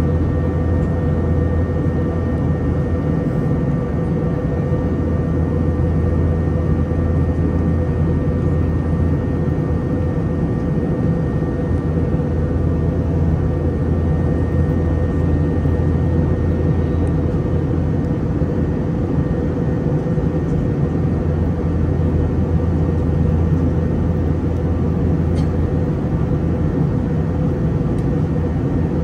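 Steady cabin drone of an Airbus A321 airliner, its IAE V2500 engines running at a constant setting, heavy in the low end with a faint high whine over it and no change in pitch or level.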